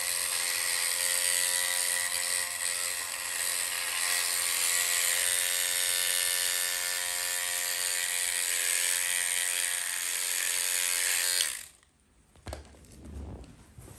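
Electric dreadlocks (interlocking) machine buzzing steadily while it works a lock of natural hair. It cuts off suddenly near the end, followed by a few faint handling knocks.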